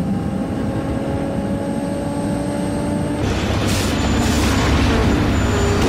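Film car-chase sound: a steady engine drone inside a car. Then, from about three seconds in, a louder low road rumble with harsh scraping bursts as a bare wheel rim grinds along the asphalt.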